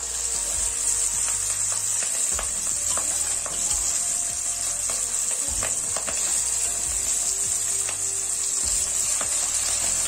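Hot oil sizzling steadily with scattered crackles as raw, turmeric-coated hilsa fish slices fry in a kadai.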